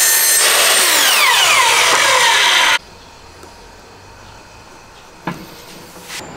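Electric mitre saw cutting a thin pine strip, its motor whine falling in pitch as the blade spins down. The sound cuts off abruptly about three seconds in and gives way to quiet handling, with a single knock about five seconds in.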